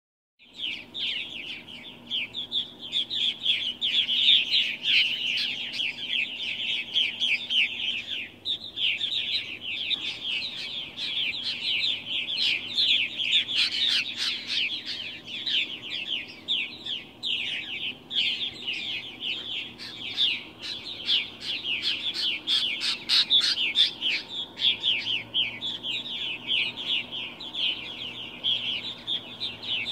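A flock of purple martins calling in flight: many birds chirping rapidly at once, their calls overlapping without a break.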